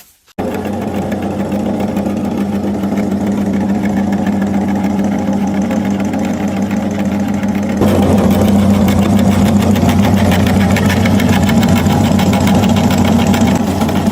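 Electric meat grinder motor switching on abruptly and running with a steady hum and fine rapid rattle; about eight seconds in it gets louder and its tone changes.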